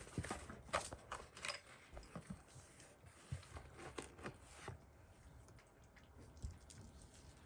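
Small plastic toy figures and their packaging being handled: scattered light clicks and rustles that thin out after about five seconds.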